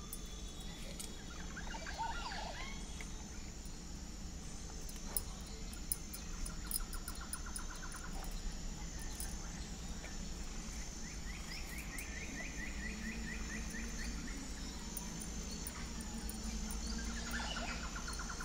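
Faint background of chirps and rapid trills from birds or insects over a steady low hum, with a few light clicks.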